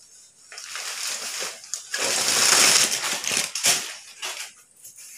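Art silk saree being unfolded and lifted up, the fabric rustling and swishing; the loudest swish comes about two seconds in and lasts a second or two, then fades to lighter rustling.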